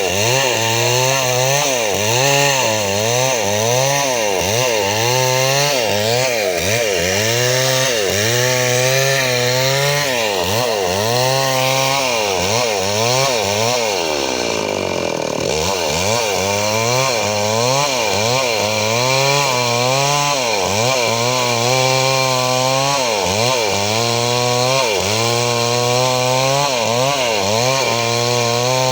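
Chainsaw engine running continuously, its pitch rising and falling about once a second as it works through wood. About halfway through, the engine speed sags well down and then climbs back up.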